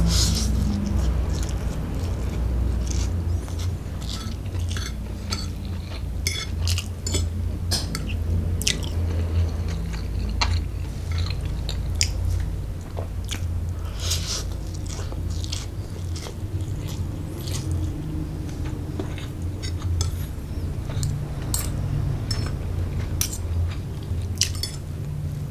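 Close-up eating of fried rice vermicelli: chewing, with many short clicks of cutlery against a plate, over a steady low rumble.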